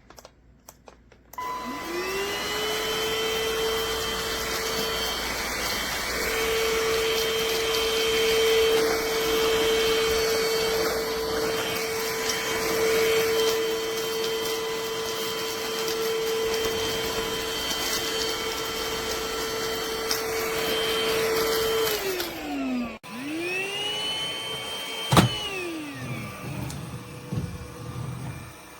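Trucozie cordless stick vacuum's motor spinning up with a rising whine, running steadily for about twenty seconds, then winding down. It starts again briefly and winds down once more, with a single click partway through.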